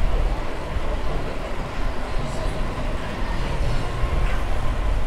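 Wind rushing past a cyclist's ears and bicycle tyres rolling on pavement, a steady noise heaviest in the low rumble.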